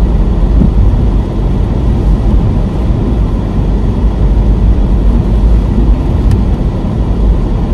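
Steady engine and tyre noise of a moving car on a wet road, heard from inside the cabin. There is a single brief click about six seconds in.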